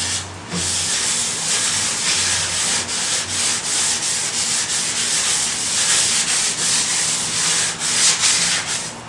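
Wet 800-grit sandpaper rubbing over the epoxy-laminated foam nose of an RC airliner model in circular strokes: a continuous scratchy hiss that swells and fades with each stroke.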